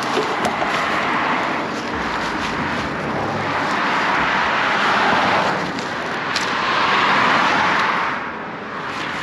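Road traffic: several vehicles passing one after another, the noise swelling and fading about three times, the last pass the loudest.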